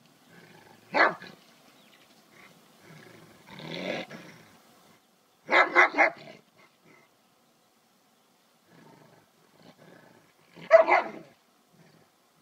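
A large dog giving short barks and growls, four separate outbursts with pauses between, the loudest near the end.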